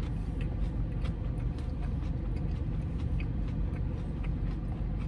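Steady low hum of a car's idling engine heard inside the cabin, with faint small clicks of chewing.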